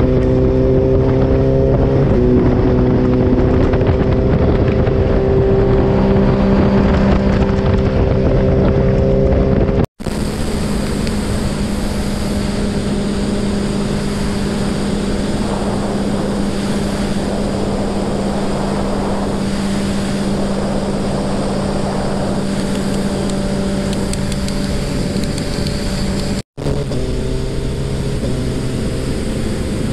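Suzuki sport motorcycle inline-four engine running at steady highway cruising speed, heard from on the bike with wind rushing over the microphone. The engine's pitch drops slightly about two seconds in. The sound cuts out for an instant twice, about ten seconds in and near the end, where the footage is edited.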